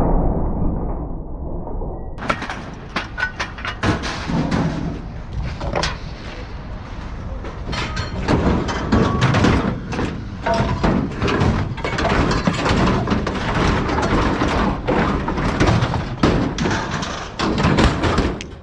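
Scrap metal being thrown off a truck onto a scrap pile: a long, irregular run of clanks, thuds and crashes of steel landing, starting about two seconds in.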